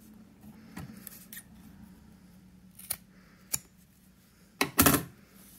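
Scissors snipping through a hemmed fabric strip to trim it: a few separate snips, then a quick run of louder snips about four and a half seconds in.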